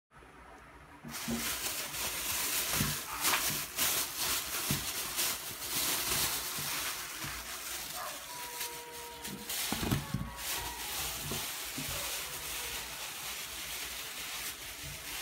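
Thin plastic bag being crumpled and handled, crackling and rustling continuously from about a second in.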